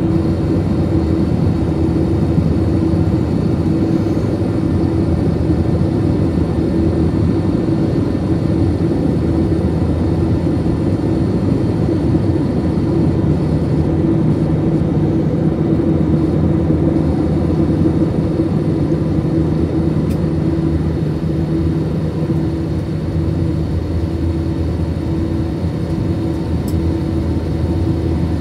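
Airbus A321 jet engines and airflow heard inside the passenger cabin after takeoff: a loud, steady drone with a low rumble and a constant hum running through it.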